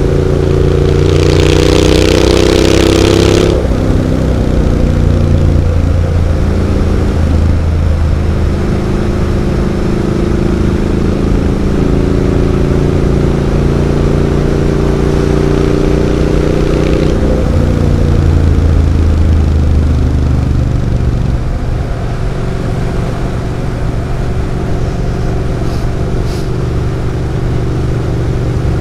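Triumph Street Scrambler 900's parallel-twin engine through Zard exhaust pipes, under way on the road. The revs climb over the first few seconds under a loud hiss, then drop sharply about three and a half seconds in. They pull up again from about twelve seconds and fall away near seventeen seconds, then run steadier and lower.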